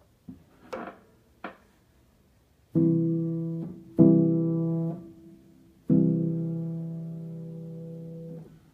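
Piano played with the felt (practice) pedal down, which slides a strip of felt between the hammers and the strings for a very quiet sound. Three notes are struck, about three, four and six seconds in; each dies away, and the last rings on for about two and a half seconds.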